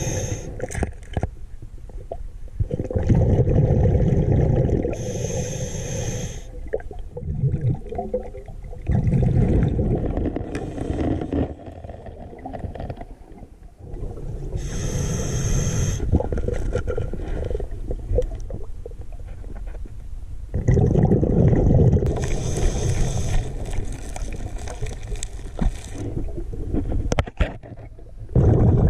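Scuba diver breathing underwater through a regulator: a hissing inhale, then a low rumbling burst of exhaled bubbles, repeating about four times.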